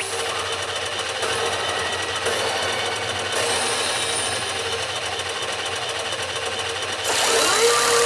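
Pachinko machine (P北斗の拳9闘神) sounds: a dense, rapid, steady rattle with a steady electronic tone under it. It grows louder about seven seconds in, where gliding effect tones begin.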